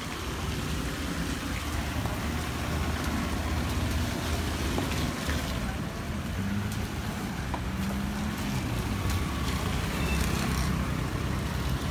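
Road traffic passing over a wet, potholed road: the engines of cars, a small truck and scooters over a steady low rumble, with one engine's hum standing out for a moment around the middle.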